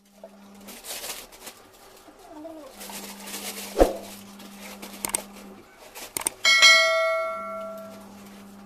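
Plastic bag rustling and tools and parts being handled as repair gear is packed into a backpack, with a few knocks. About six seconds in come a click and a bright bell-like ding that fades over a second or so, the sound effect of a subscribe-button animation.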